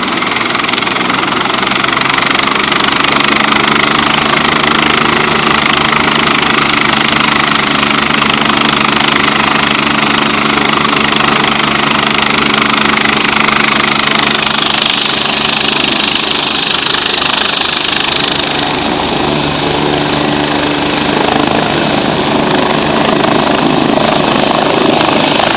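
Eurocopter EC145 helicopter's twin turbines and main rotor running on the ground. A steady high turbine whine sits over the even beat of the rotor blades, and a rushing hiss grows louder for a few seconds around the middle.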